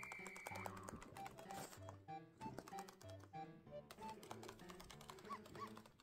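Quiet background music with a repeating bass line and melody, with a stream of light, quick tapping clicks over it.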